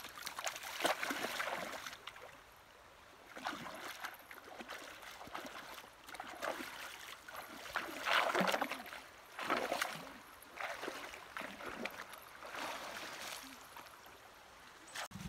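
Bare feet wading through shallow river water, with irregular splashes and sloshes at each step.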